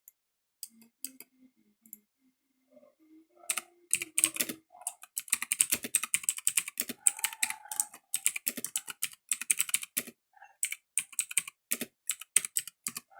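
Typing on a Motospeed GK89 mechanical keyboard with clicky Otemu blue switches: a few scattered keystrokes at first, then fast continuous typing for several seconds, a brief pause, and another run of typing near the end.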